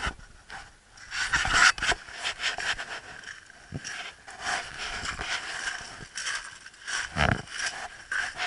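Footsteps crunching and scraping on loose shingle, an irregular run of crunches with louder clusters about a second and a half in and again near the end.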